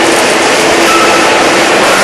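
Steady, loud machinery and air noise of a cathode ray tube factory's production hall: an even hiss with faint hum tones under it.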